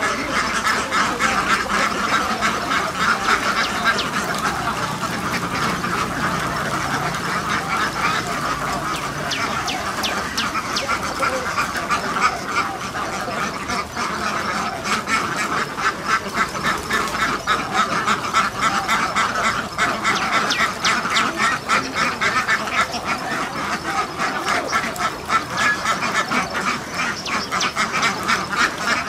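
A large flock of white laying ducks quacking, many calls overlapping without a break.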